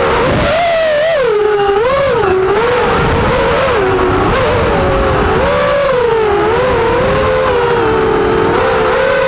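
FPV racing quadcopter motors whining in flight. Several close pitches rise and fall constantly as the throttle changes.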